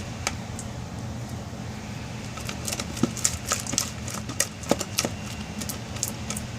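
Slime being stirred in a bowl during activation: sticky clicks and pops from the mixing, coming thick and fast from about two and a half seconds in, over a steady low hum.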